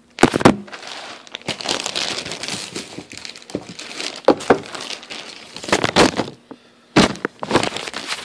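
Clear plastic packaging bag crinkling and rustling in irregular bursts as a polo shirt is handled and pulled out of it, with a few sharp knocks of handling noise.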